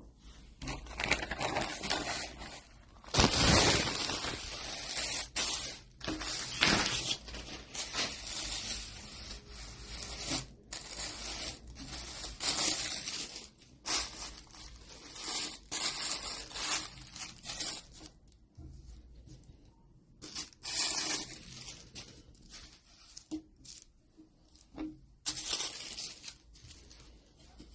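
Packaging being torn open and handled while a football shirt is unboxed: irregular bursts of tearing, crinkling and rustling, the loudest about three seconds in.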